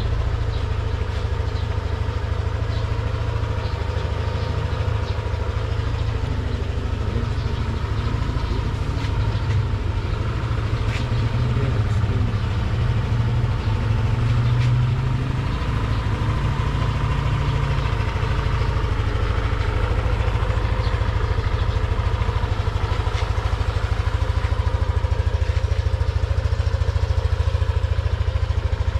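Yamaha Aerox 155 scooter's single-cylinder, liquid-cooled 155cc engine idling steadily.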